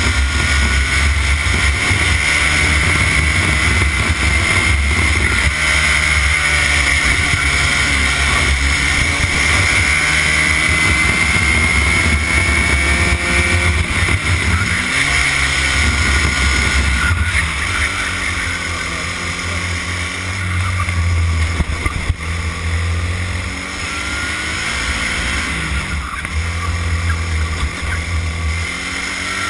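Racing kart engine heard onboard at speed, its pitch rising and falling with the throttle through the corners; about two-thirds of the way through it drops back and quietens as the kart slows, then pulls up again.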